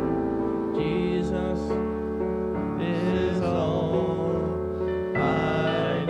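Church band playing a slow gospel song: sustained piano and keyboard chords over a steady bass line, with a melody weaving over them in the middle.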